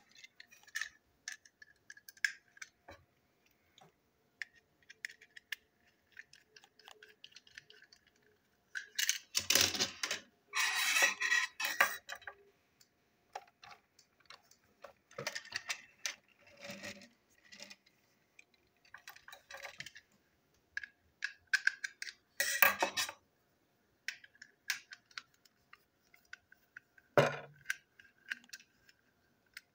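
Screwdrivers and plastic toy train wagon parts clicking, scraping and clattering on a tabletop as a wagon is taken apart, with louder bursts of clatter about a third of the way in and again about three-quarters of the way through.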